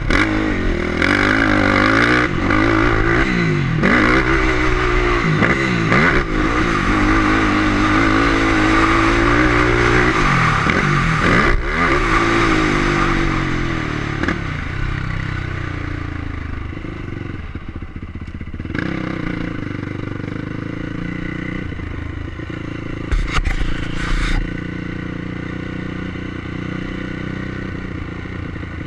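Motocross bike engine revving hard, rising and falling repeatedly through the gears, then settling to a lower, steadier note about halfway through as the bike slows down. A brief clatter sounds near the end.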